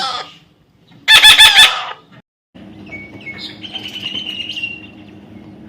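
A parrot's loud, harsh squawk about a second in, following the tail of another squawk at the start. After a short gap, faint high chirping calls sound over a steady low hum.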